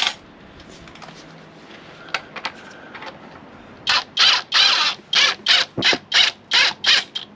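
Ratchet wrench worked back and forth in quick strokes, a burst of ratcheting clicks about every half second, starting about four seconds in after a few seconds of low background hiss.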